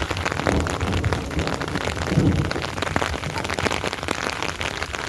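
Rain falling steadily, a dense hiss made up of many separate drop impacts.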